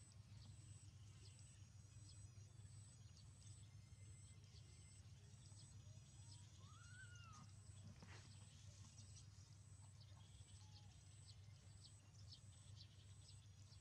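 Faint background with a steady low hum and a high chirp repeating evenly, a little under two times a second. About seven seconds in comes a single short animal call that rises and falls in pitch.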